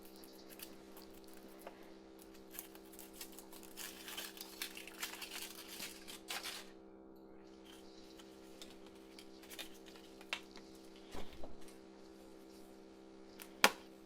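Foil wrapper of a Kinder Surprise egg crinkling and tearing as it is unwrapped, then a few light clicks and a sharp snap near the end as the plastic capsule is handled and opened.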